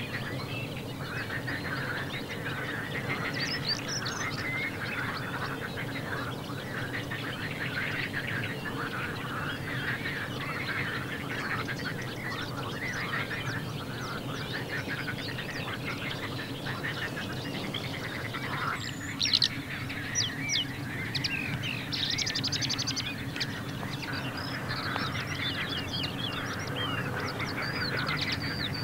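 Dawn chorus in spring wetland: many songbirds singing at once in dense, overlapping chirps and trills, with waterfowl such as geese and ducks calling among them. A few louder, sharp notes stand out about two-thirds of the way through.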